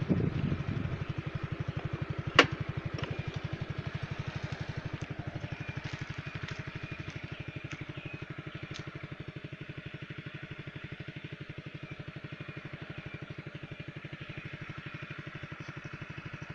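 A small engine idling steadily with a rapid, even putter, and a single sharp click about two and a half seconds in.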